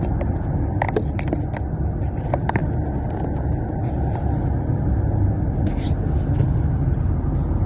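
Road noise inside a moving car's cabin: a steady low rumble of tyres and engine at speed. In the first few seconds, several sharp clicks and scrapes from the phone being handled and rubbed against a sleeve.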